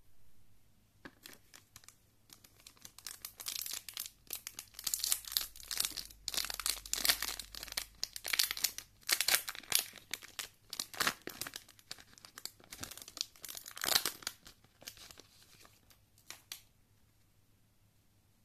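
Foil wrapper of a Yu-Gi-Oh! Maximum Gold El Dorado booster pack being torn open and crinkled by hand: a long run of sharp crackles and rips that dies away near the end.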